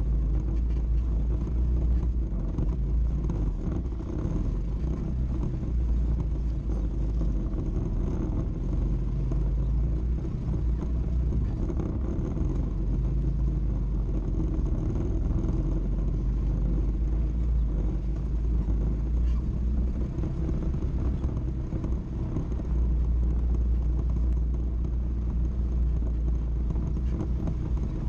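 ATV engine running steadily at low speed as the quad crawls over a rocky trail, heard as a strong low rumble from the machine the camera rides on.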